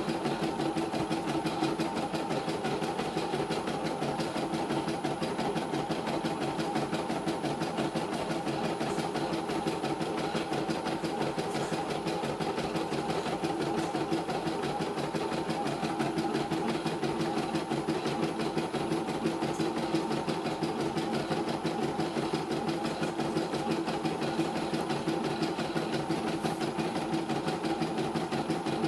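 CNY E900 computerized embroidery machine stitching a design at full speed: a steady, rapid needle chatter with no breaks. It is running normally on its test run.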